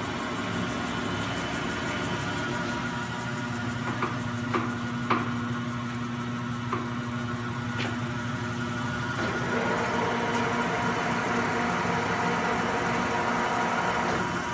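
Blanchard No. 18 vertical-spindle rotary surface grinder running: a steady hum from the spindle motor and the turning 36-inch magnetic chuck table, with a few light clicks. About nine seconds in, the tone changes and grows slightly louder as the table is switched to another speed.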